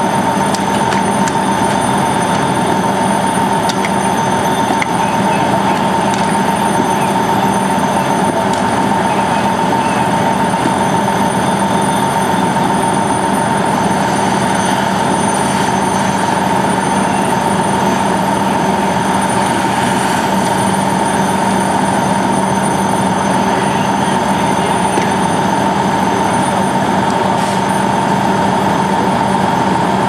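A fire engine's engine and pump running steadily at the fire ground, a constant loud drone with an unchanging whine over it.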